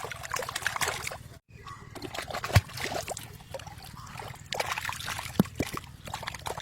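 Water sloshing and splashing in close, with a couple of sharp knocks.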